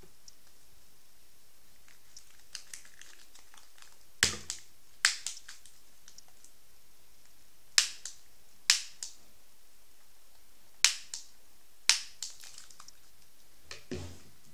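Homemade cardboard airgun's mechanism snapping as it is worked by hand: six sharp snaps a second or a few seconds apart, each followed by a fainter click. A duller knock near the end.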